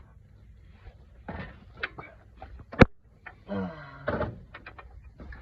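Hand tools and sockets being handled: scattered clicks and knocks, with one sharp, loud knock about three seconds in and a short scraping, squeaky sound just after it.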